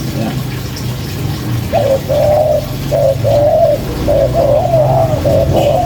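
Spotted dove (tekukur) cooing: a run of short, arched, mellow notes that starts a little under two seconds in and keeps going, over a steady low hum.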